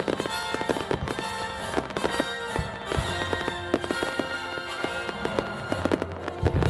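Fireworks bursting and crackling in rapid succession, with music playing over them.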